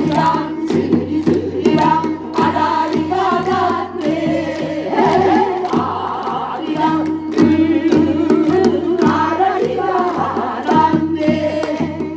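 Several performers singing a song together over amplified backing music with a steady beat.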